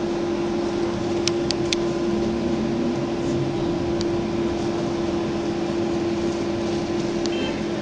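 Inside a moving trolleybus: a steady, constant-pitched electric hum over the rumble of the ride, with a few light clicks about a second in and a brief faint high beep near the end.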